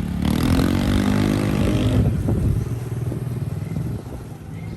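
Honda ADV 150 scooter's single-cylinder engine breathing through an aftermarket VMAX power pipe exhaust, revved for about two seconds and then settling back to a lower, steadier run.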